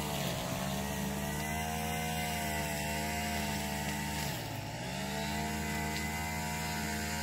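A small petrol engine runs steadily at a fairly even pitch. A little over four seconds in, its pitch dips sharply for about half a second, then comes back up.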